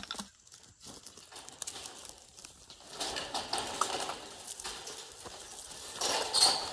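Woven wire fencing being worked loose from a wooden post with hand tools: a sharp click at the start, then scattered metal taps and clicks, with two spells of the wire mesh rattling and scraping, about three seconds in and again near the end.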